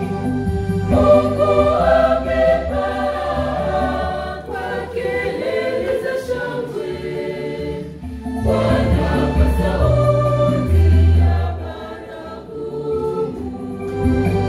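Church choir singing a Swahili hymn in parts, accompanied by an electronic organ holding deep bass notes.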